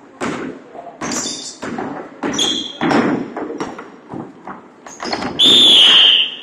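Basketball bouncing and sneakers squeaking on a wooden gym floor, echoing in the hall. Near the end a referee's whistle blows once, a steady shrill blast of about a second, the loudest sound here.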